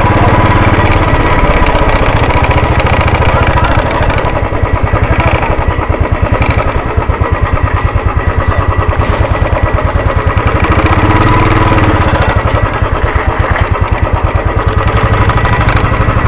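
Royal Enfield Classic 350's single-cylinder engine running at low speed, a steady rapid beat of firing pulses.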